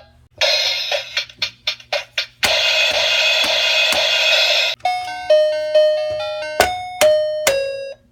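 Electronic toy drum kit playing its built-in sound effects: a quick run of drum and cymbal hits, a held cymbal-like wash for about two seconds, then a string of bright electronic chime tones like a doorbell.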